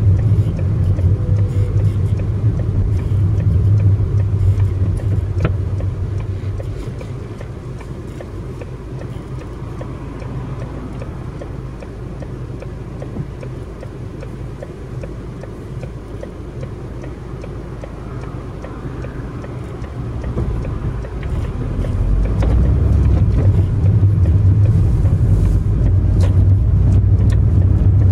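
Car engine and tyre noise heard inside the cabin, a steady low hum. It drops to a quieter level for the middle part, then grows louder again from about three quarters of the way in as the car pulls out and gathers speed.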